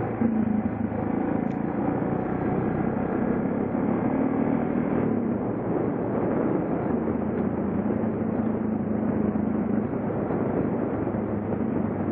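Suzuki DR650's single-cylinder four-stroke engine running steadily under way, its note dipping slightly in the middle with small changes of throttle, mixed with wind and road noise on the bike-mounted camera.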